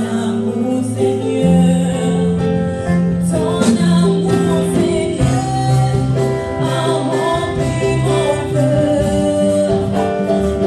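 Live gospel worship song: a woman sings lead with backing singers over a band of keyboard and drums, the low notes held long under the voices.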